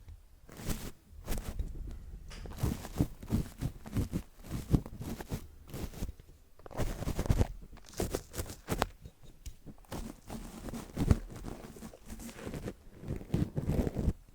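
A paintbrush brushing over a microphone covered by an old mic bag: a run of irregular scratchy, crunchy strokes, some louder than others, with short pauses between bursts.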